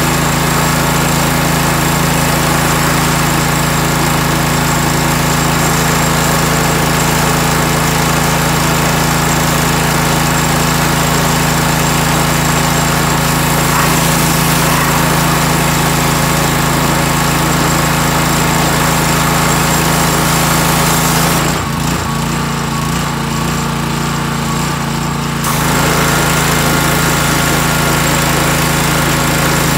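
A gas-engine pressure washer running steadily while its water jet hisses against a lawn mower's deck. About three-quarters of the way through the spray stops for a few seconds while the engine keeps running, then resumes.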